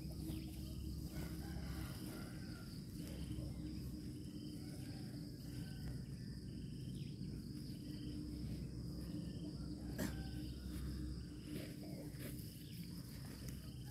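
Crickets trilling steadily over a low outdoor rumble, with a single sharp click about ten seconds in.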